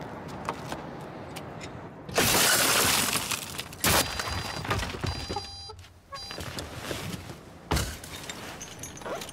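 A car's side window smashed in, about two seconds in: loud shattering glass with a second sharp crash a second later, then small shards tinkling down. A single thump near the end.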